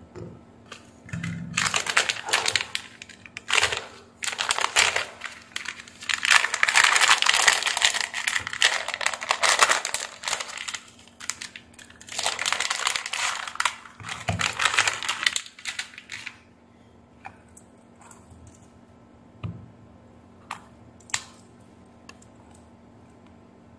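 Plastic bag crinkling and rustling in repeated bursts as it is handled and opened, then a few short clicks near the end.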